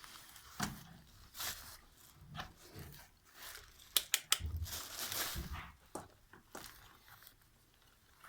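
Handling noises: irregular rustling, scraping and rubbing, with a quick cluster of sharp clicks about four seconds in.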